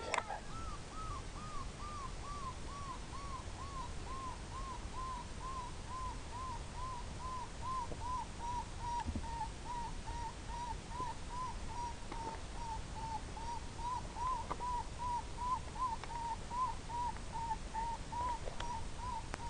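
Electronic predator call playing a looped prey-distress sound to lure in foxes and bobcats. It is a steady, even train of short high notes, about two a second, that slides a little lower over the first few seconds and then holds its pitch.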